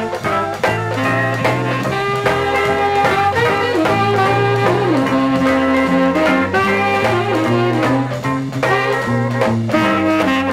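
A 1970 rhythm-and-blues 45 rpm vinyl record playing an instrumental stretch with no vocal: a band with a steady bass line and regular drum hits under a lead melody line.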